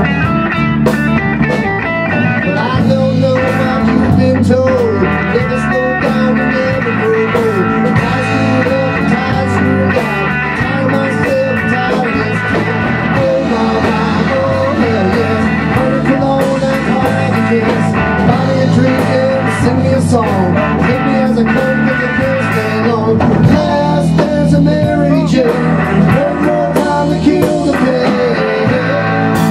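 Rock band playing an instrumental passage: an electric guitar line with bending notes over electric bass and drums.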